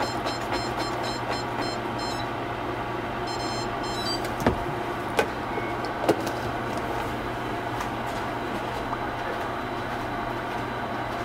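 Steady rushing noise with a constant low hum from the kitchen, where pork bones are boiling on the stove. Three short light knocks come near the middle.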